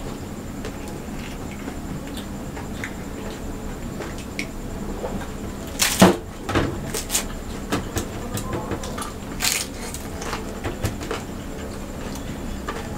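Eating noises: a scatter of short, sharp crunches and clicks as crisp fuchka shells are bitten and food is handled, the loudest about halfway through, over a faint steady hum.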